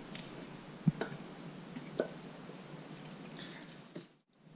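Quiet scraping of a spatula pushing thick cream sauce out of a stainless steel saucepan into a frying pan, with a few soft taps of utensil on metal.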